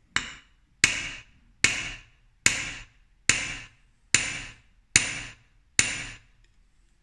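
A steel hammer tapping a laminated Japanese plane blade held on the edge of a small steel anvil: eight even metallic taps about one a second, each with a short high ring. This is uradashi, tapping out the back of the blade so that its hard steel layer can be flattened again.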